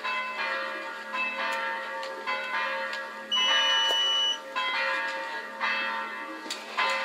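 Bells ringing in a slow run of strikes, roughly one a second at changing pitches, each one ringing on. A steady high beep sounds for about a second a little over three seconds in.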